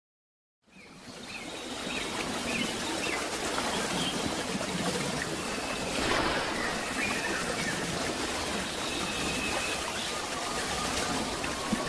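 A steady rushing-water sound fades in after a brief silence and holds, with faint short chirps over it; a sustained musical tone comes in near the end.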